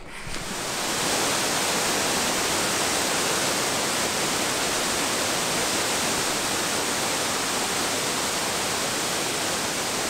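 Waterfall rushing, a steady, even roar of falling water that fades in over about the first second.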